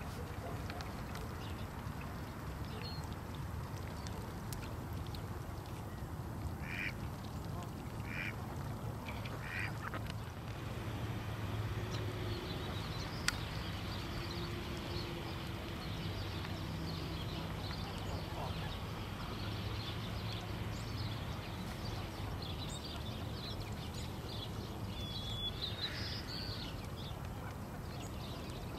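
A flock of ducks calling on a partly frozen pond: scattered short quacks and softer chatter over a steady low rumble.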